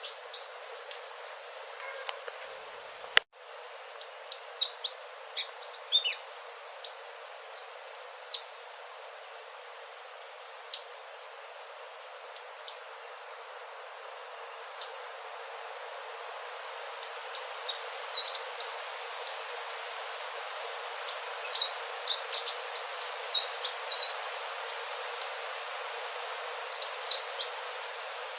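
Verditer flycatcher (sikatan ninon) singing: bursts of quick, high, sweet chirping notes in short phrases separated by pauses of a second or two, over a steady hiss. A single sharp click with a momentary dropout comes about three seconds in.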